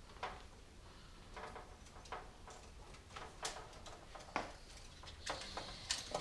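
Irregular small clicks, taps and rustles of computer parts and cables being handled, with a faint steady low hum underneath.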